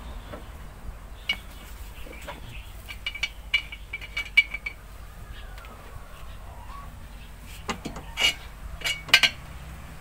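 Metal-on-metal clinks and taps of hand tools and fittings against truck engine parts as a mechanic works by hand. Two scattered clusters of short clicks, several ringing briefly; the loudest come near the end.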